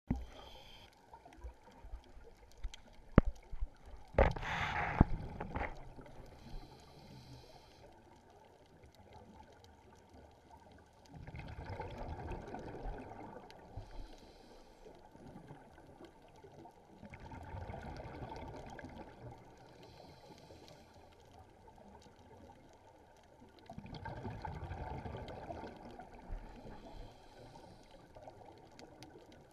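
Scuba regulator exhaust bubbles rumbling underwater as a diver breathes out, in four bursts of two to three seconds about every six seconds, the first the loudest. A few sharp clicks come in the first five seconds.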